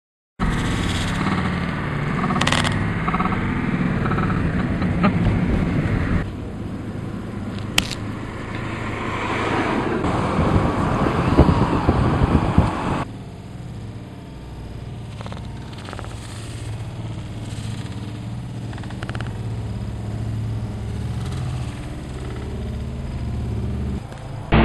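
Engine and road noise heard from inside a moving car: a steady low rumble that changes abruptly about 6 and 13 seconds in. There is a sharp click near 8 seconds in.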